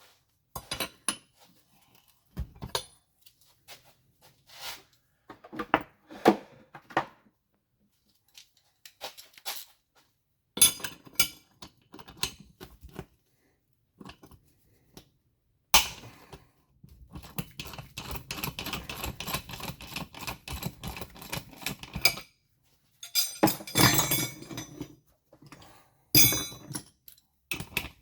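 Metal hand tools and engine parts knocking and clinking during a moped engine strip-down, with several seconds of rapid, continuous rattling in the second half.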